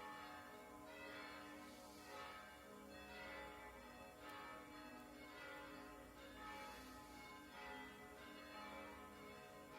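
Church bells ringing faintly, with a new strike coming roughly every second and the earlier tones ringing on under it.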